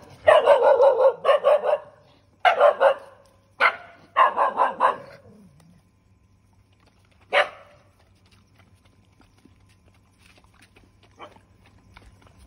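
Stray dogs barking in quick clustered volleys for the first five seconds, with one last bark about seven seconds in.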